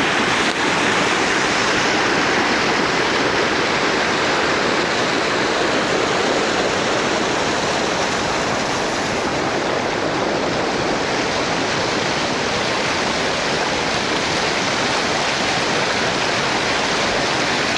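Loud, steady rush of a waterfall, water pouring down over a rock face.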